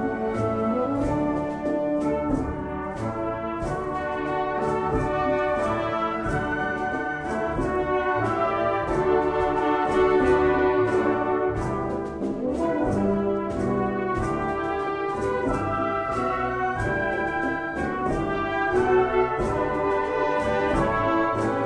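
A wind band playing a rumba live: brass chords and melody over a steady percussion beat.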